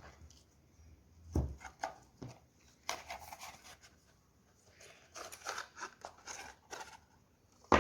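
Packaging being handled: paper and cardboard rustling and small clicks as the box contents are taken out, with a soft thump about a second and a half in and a sharper knock at the very end.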